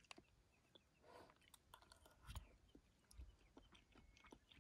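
Near silence with faint chewing of freeze-dried risotto and a few light clicks and rustles from a spoon in its foil food pouch.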